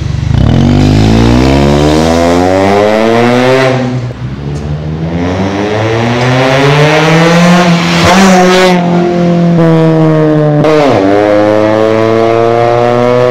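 Honda Civic FD 2.0 i-VTEC's four-cylinder engine through a new full stainless-steel exhaust, accelerating away hard. The exhaust note rises with the revs and drops back sharply twice, about four seconds in and near the end, as it shifts up, then climbs again.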